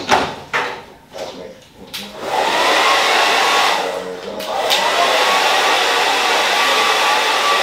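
Handheld hair blow dryer switched on about two seconds in after a few light knocks, its motor whine rising as it spins up, then blowing steadily with a brief dip around four seconds in.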